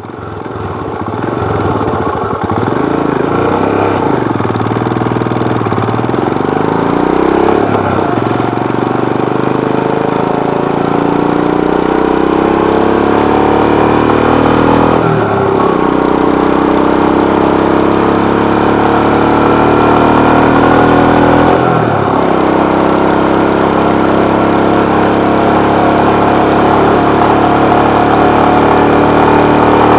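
Royal Enfield Himalayan BS6's 411 cc single-cylinder engine and exhaust pulling the motorcycle up through the gears. The engine note rises steadily, dips briefly at each upshift (three times), then climbs again.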